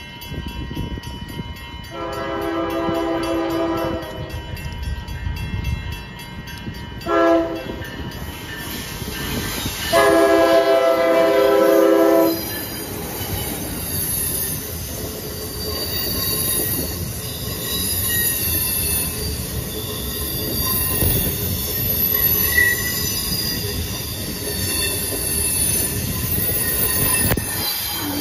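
Amtrak Acela Express trainset sounding its chord horn in three blasts, long, short, long, as it approaches. It then runs past close by with a steady rumble of wheels on rail and faint high wheel squeal.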